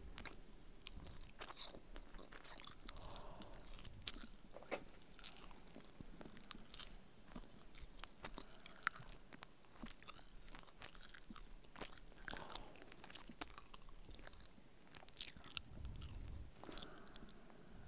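A person biting into and chewing a hamburger, heard as irregular short wet clicks and smacks of the mouth.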